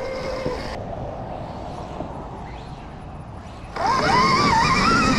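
Stark Varg electric motocross bike's motor whine with the rumble of the ride; it drops to a low rumble for a few seconds, then near the end comes back loud, the whine rising and falling with the throttle.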